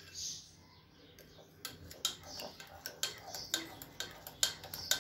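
Metal spoon stirring water in a ceramic mug, clinking against the mug's sides in quick, irregular clinks that pick up about one and a half seconds in.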